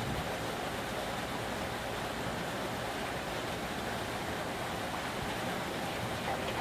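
Steady open-air hiss of wind and distant background noise while an electric train approaches from far off. A faint tone from the approaching train comes in near the end.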